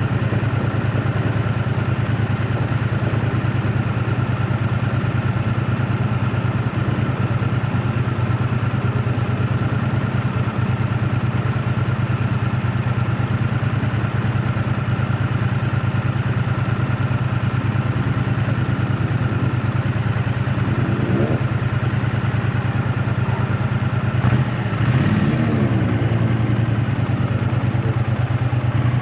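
2024 Triumph Bonneville T100's 900 cc parallel-twin engine running steadily on the move. About four-fifths of the way through, the note briefly dips and glides in pitch, then settles back to a steady run.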